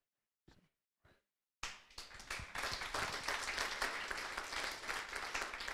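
A group of people applauding, starting suddenly after about a second and a half of near silence.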